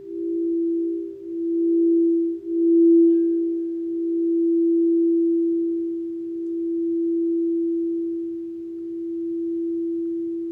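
Crystal Alchemy quartz singing bowls ringing: two close tones pulse against each other, then about two and a half seconds in one bowl's tone swells and rings on alone, wavering slowly in loudness as it fades.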